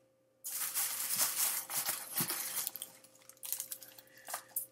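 Packaging rustling and crinkling as items are dug out of a shipping box: a dense stretch of crackling for about two seconds, then scattered crinkles and small clicks.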